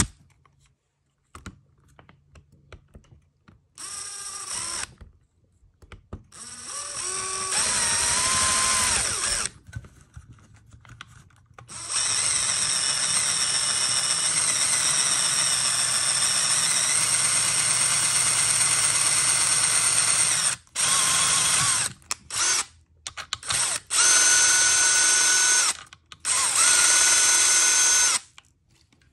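Small electric drill running in bursts as it bores a pilot hole through an RC crawler's plastic skid. It spins up with a rising whine, runs steadily for about eight seconds, then gives four short bursts near the end.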